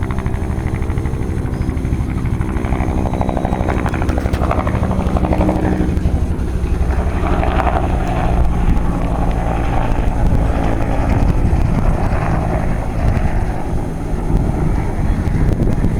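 Air force helicopter flying, its rotor and engine running steadily. A set of steady tones fades out about six seconds in, leaving a rushing noise that swells and eases.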